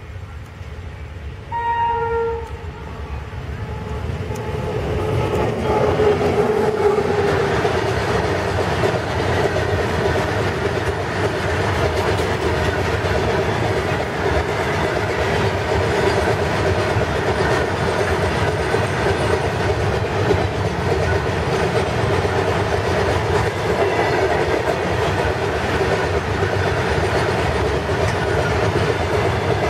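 WAG-9 electric locomotive sounds one short horn blast about two seconds in, then comes up and passes close. A long rake of empty BOXN open freight wagons follows, rumbling by steadily with a continuous clickety-clack of wheels over the rails.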